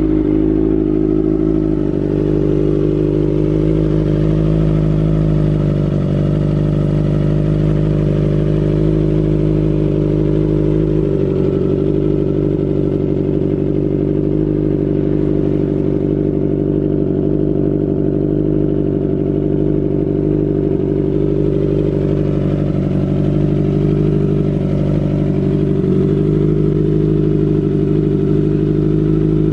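Kawasaki Ninja ZX-25R's 250 cc inline-four idling steadily through an Austin Racing GP1RR silencer on a custom R9 header.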